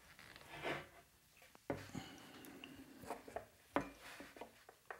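Faint handling noise of a Strat-style guitar body and its bolt-on neck being turned over and fitted together on a tabletop: a soft rub, then a few light knocks of wood against the table.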